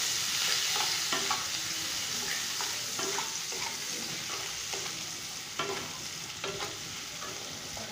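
Chopped onions sizzling in hot mustard oil in a stainless steel kadai while a wooden spatula stirs them, with a few scrapes and knocks of the spatula against the pan. The sizzle slowly fades.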